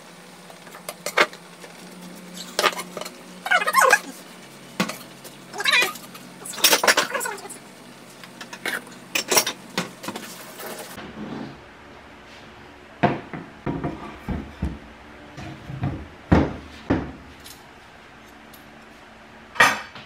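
Kitchen pots, bowls and spoons clinking and knocking in scattered, sharp strikes.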